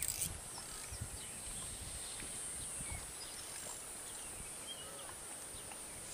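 Faint outdoor ambience: wind buffeting the microphone, with a steady high hiss and a few faint scattered chirps.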